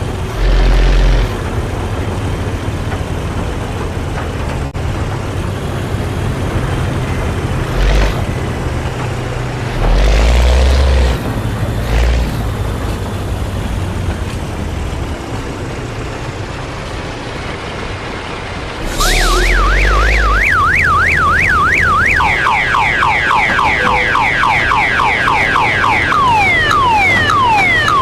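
Scania truck engine running, with several loud low surges, the first few with a hiss above them. About two-thirds in, an electronic siren starts, cycling in quick up-and-down yelps, then a fast run of falling sweeps, then yelps again.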